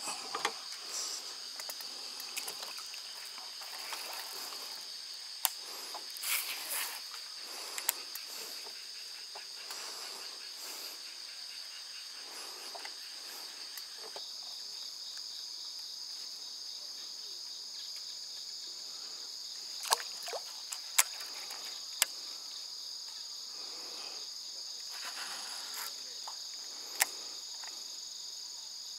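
Steady high-pitched chorus of insects buzzing without a break. A few sharp clicks, loudest of all, stand out over it now and then.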